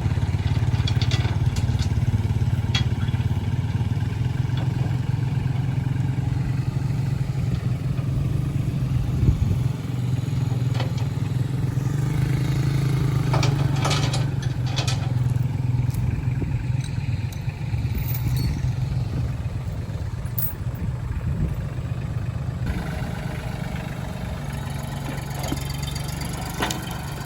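An engine running steadily with a low drone, with a few scattered knocks and clanks over it, the loudest about nine seconds in.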